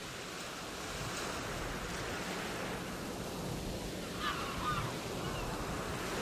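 Steady rushing sea and wind noise, with a short squeaky call about four seconds in.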